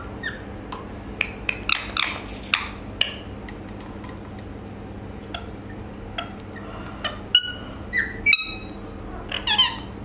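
Indian ringneck parakeet making short chirps, clicks and squawks in clusters: a run about two seconds in, another around seven to eight seconds, and a last burst near the end.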